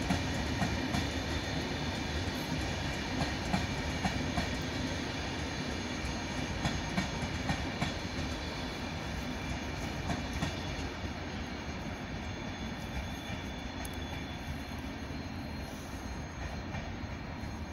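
Regional train of double-deck Vivalto coaches with an E464 electric locomotive passing: steady rumble of the running train, wheels clicking over rail joints through the first half, with a faint steady high whine. The sound eases off gradually in the second half as the train draws away.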